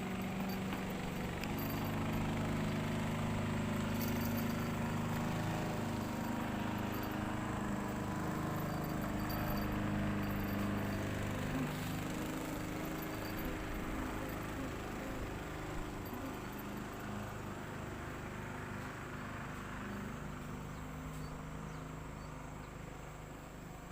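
A small engine's steady hum, growing louder in the first couple of seconds, then slowly fading away through the second half.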